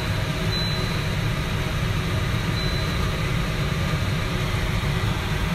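Steady low mechanical rumble with a faint, even hum over it, unchanging throughout, like a motor or fan running.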